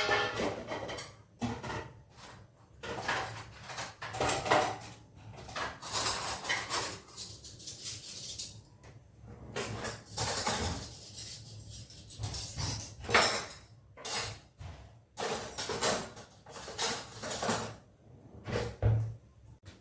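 Dishes, pots and cutlery being handled in a kitchen: irregular clinks and clatters in short bursts, some longer and noisier.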